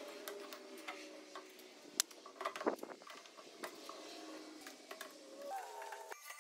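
A string of small clicks and ticks from a bar clamp being worked tight on a wooden frame on a hollow-chisel mortiser table. Near the end a rising whine sets in as the mortiser's motor starts up.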